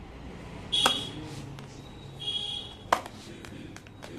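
Packing tape on a cardboard parcel being scraped and slit open: two short, high, squeaky scrapes, about a second and two and a half seconds in, and a sharp click just before three seconds.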